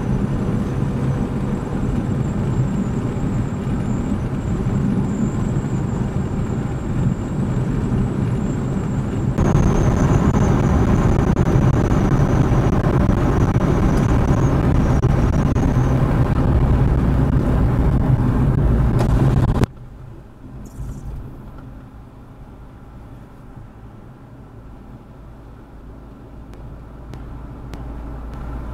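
Suzuki Jimny on the move: steady engine and road noise. It gets suddenly louder about nine seconds in, then drops abruptly to a much quieter, steady hum about twenty seconds in.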